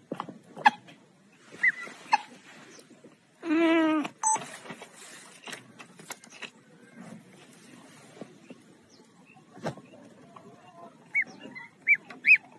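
Gosling peeping in short, high chirps: a couple near the start and three in quick succession near the end. About three and a half seconds in, a single loud, wavering animal call lasts under a second.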